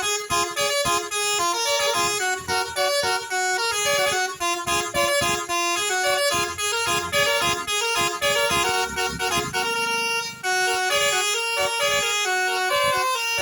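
A bus's basuri telolet horn, a multi-tone musical air horn, playing a fast melody of short notes that change pitch several times a second.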